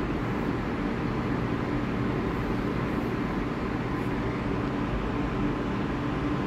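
Steady low rumble with a constant hum from a subway train in the distance, over city background noise.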